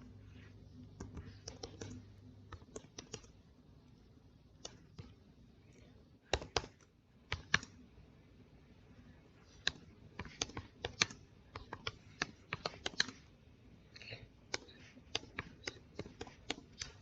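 Typing on a computer keyboard: irregular runs of sharp key clicks, sparse at first and coming thick and fast in the second half.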